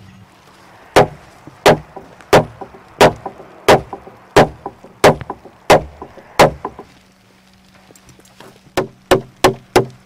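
Hammer blows on timber logs: nine sharp, evenly paced strikes about one every two-thirds of a second, then after a short pause a quicker run of slightly lighter strikes near the end, nailing a perforated steel nail plate onto the log ends.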